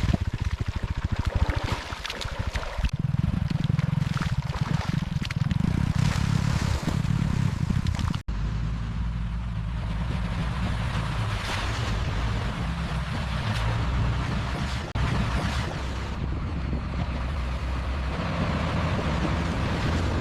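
Heavy road-construction machinery running with a deep engine rumble and a gritty, crackling noise layer. The sound drops out for an instant about eight seconds in, then continues steadier.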